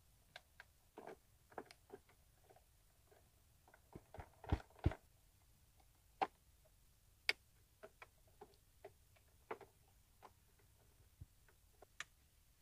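Faint scattered clicks and taps of a plastic taillight lens and housing being handled and pushed back into place on a motorcycle trike. The loudest knocks cluster about four to five seconds in, with a few single sharp clicks after.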